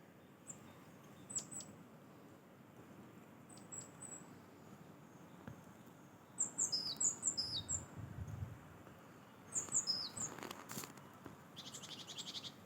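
Small songbirds calling with short, high chirps. The calls come in quick runs of two-pitched notes about halfway through and again later, and a fast ticking is heard near the end.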